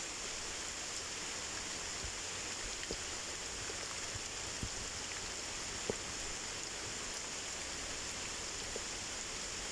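Waterfall: a steady rush of falling water, with a few faint ticks from splashing drops.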